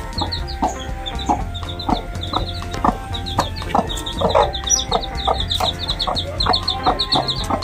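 Desi hen clucking steadily, about three clucks a second, while her chicks peep in quick high-pitched runs.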